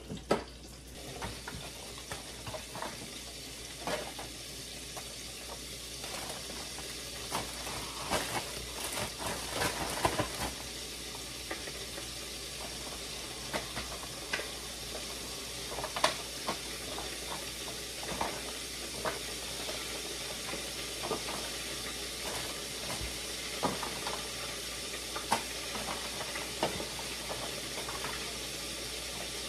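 Pieces of flounder frying in hot grease: a steady sizzle with scattered crackles and pops.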